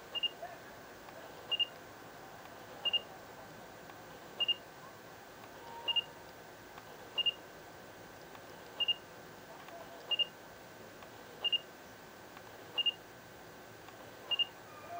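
Samsung NX10 camera's autofocus-confirmation beep: a short high double beep, heard eleven times at about one every 1.4 seconds, each beep signalling focus lock.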